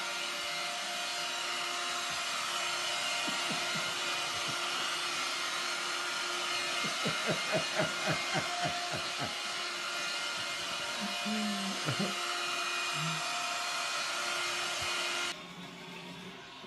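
Corded electric floor cleaner running: a steady motor hum under a rush of air, with a run of light knocks about seven to nine seconds in as the head is pushed around. It cuts off suddenly a little before the end.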